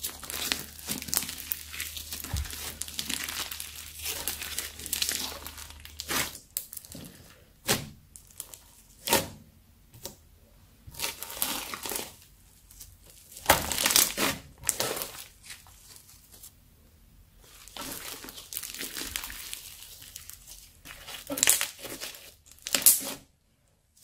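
Crunchy slime mixed with sprinkles, stretched, folded and squeezed by hand, crackling. The crackling is dense and continuous for the first six seconds or so. After that it comes in separate bursts with short pauses between.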